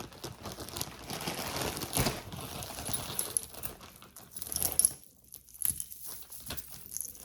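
A bag crinkling as tangled costume jewelry is pulled out of it, then metal chains and beads clinking and tinkling together in the second half.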